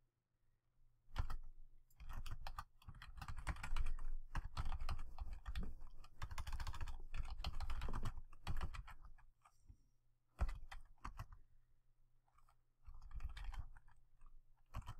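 Computer keyboard typing in several runs of quick keystrokes, the longest over the first half, then shorter runs with pauses between.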